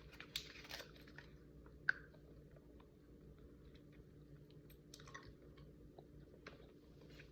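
Faint, sparse chewing and small mouth clicks from someone eating a soft milk candy, over a low steady hum.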